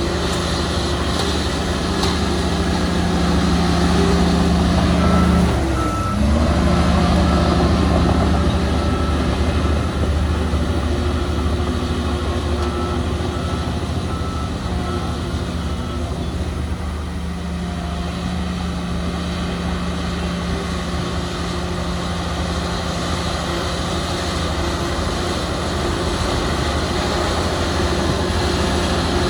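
Heavy diesel earthmoving machinery running steadily, its engine note dipping and recovering about six seconds in. A reversing alarm beeps in two spells, around six seconds in and again for a few seconds in the middle.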